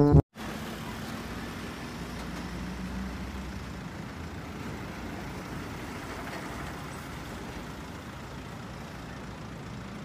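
Engine of a truck-mounted aerial work platform running steadily while its boom raises the basket, a low rumble with a faint steady hum. It starts a moment in, after a brief silence.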